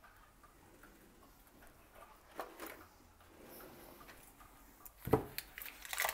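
Faint ticks and knocks of kitchen handling, then a single knock on the work surface about five seconds in, followed by a rapid run of clicks and rustling near the end as the hard block of butter is handled for cutting.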